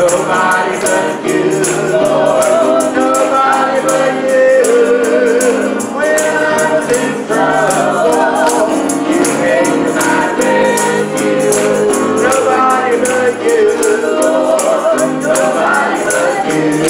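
Live gospel praise music: voices singing with vibrato over piano accompaniment, with a steady percussive beat.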